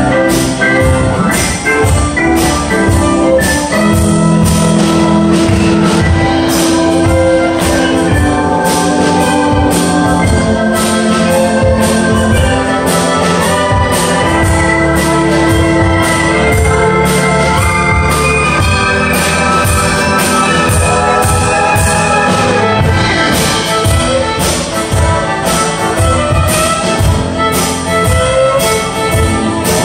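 Live contra dance band of fiddle, keyboard and percussion playing a dance tune with a steady beat.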